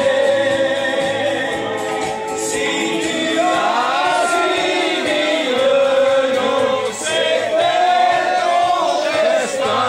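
A group of men singing together in chorus, loud and spirited.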